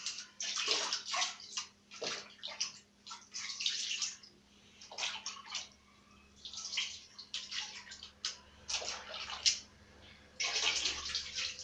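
Water splashing over a fan's protective guard as it is wetted before scrubbing, in a series of irregular bursts.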